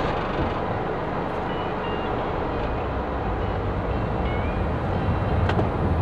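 Car being driven: steady engine and road noise heard inside the closed cabin, with a few faint, short high tones in the middle.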